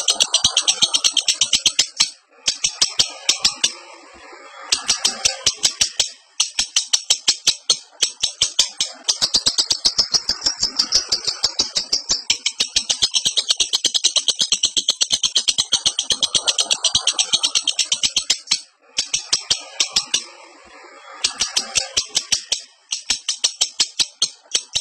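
Lovebird in breeding condition chattering: long runs of sharp, high-pitched chirps at about six a second, broken by a few short pauses.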